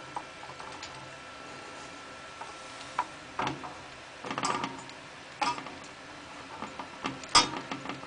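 Metal spoon clinking and scraping against a metal cake pan as it spreads caramel over the bottom: scattered sharp clicks and short scrapes, the loudest click about seven seconds in.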